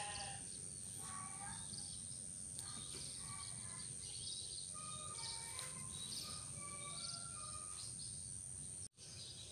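Birds chirping and calling in short high notes over a steady high-pitched whine. The sound drops out for an instant near the end.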